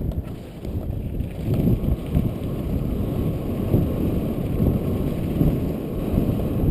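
Wind buffeting a moving camera's microphone in uneven gusts, a low rushing noise from speed while riding down a ski slope.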